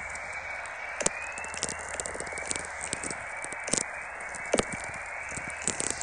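Natural radio (VLF) signals recorded by the Halley receiver in Antarctica and played as audio. A steady plasmaspheric hiss runs throughout, broken by irregular sharp clicks from sferics, with faint rising chorus tones sweeping up near the top of the hiss.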